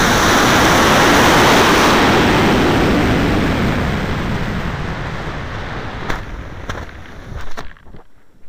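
E9-6 black-powder model rocket motor firing: a loud, even rushing noise heard from a camera riding on the rocket. After about two seconds the rush begins to fade, giving way to wind noise as the rocket climbs, and it drops off sharply near the end.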